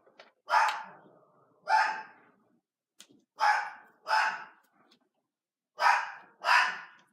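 A dog barking six times, mostly in pairs of two quick barks, with pauses of about a second between the pairs.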